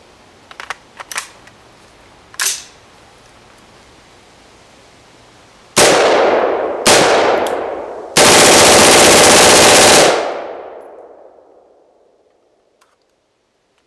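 Select-fire AR-pattern carbine firing on full auto: two short bursts of about a second each, then a longer burst of about two seconds, with the echo dying away over the next couple of seconds. A few light clicks of handling the rifle come first.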